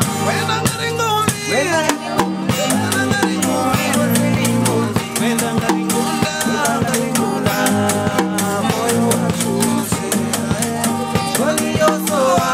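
Acoustic band music: an acoustic guitar strummed over a steady beat on wooden, hide-headed hand drums, one struck with a stick, with men singing.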